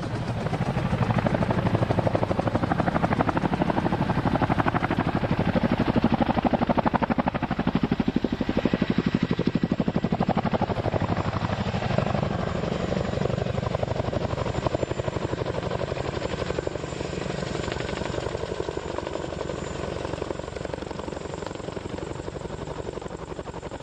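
Two Eurocopter Tiger attack helicopters flying past, their rotors making a rapid, even beat. The beat is loudest in the first half and fades away gradually toward the end as they move off.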